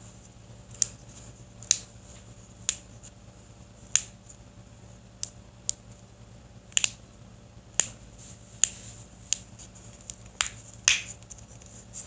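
A person cracking their joints: about a dozen short, sharp pops at roughly one a second, irregularly spaced.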